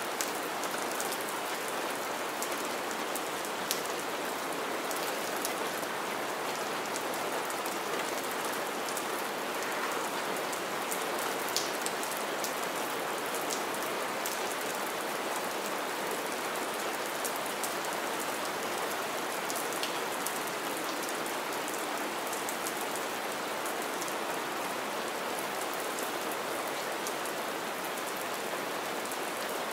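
Steady rain splashing onto wet ground and shallow puddles, with now and then a single close drop ticking sharply.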